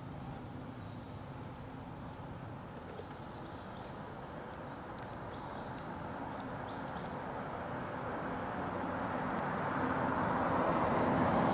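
A motor vehicle passing. Its engine and road noise grow steadily louder over the second half and are loudest near the end.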